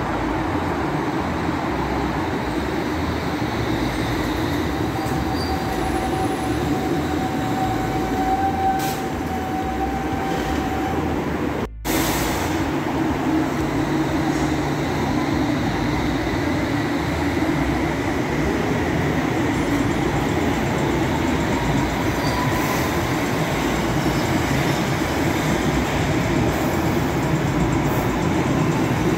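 London Underground train running on the rails with a steady rumble. A faint wheel squeal holds for several seconds before the midpoint, and a second, rising squeal comes later.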